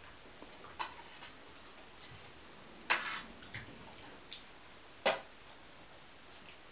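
Spoons clicking and scraping against a shared platter of rice and potatoes during a meal: a few scattered light clicks, with two louder clinks about three and five seconds in.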